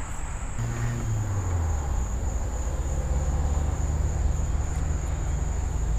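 Low engine rumble of a motor vehicle, starting about half a second in and holding steady, under a steady high-pitched insect trill.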